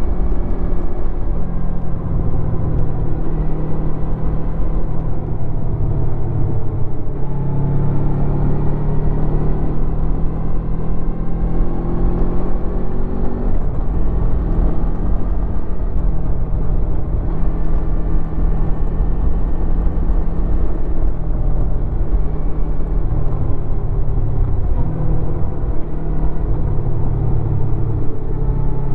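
2016 Honda VFR800's V4 engine through its stock exhaust under way, the engine note climbing and dropping again several times as the bike accelerates and changes speed.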